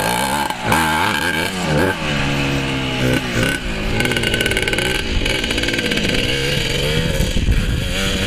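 Yamaha YZ250 two-stroke single-cylinder dirt bike engine being ridden hard, its revs rising and falling several times as the throttle is worked.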